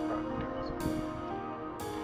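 Background music: sustained soft notes with a light percussive hit about once a second.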